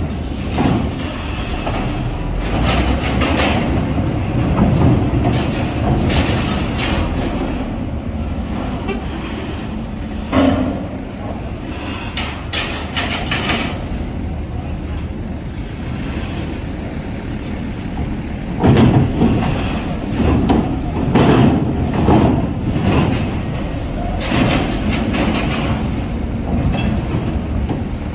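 Vehicle engines running and moving, with voices in the background and several louder surges in the last third.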